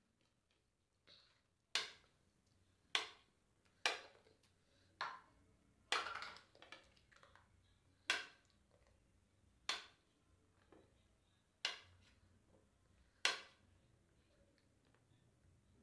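Kitchen knife slicing peeled ripe bananas into chunks on a plate, the blade knocking sharply on the plate about ten times at uneven intervals, roughly once a second.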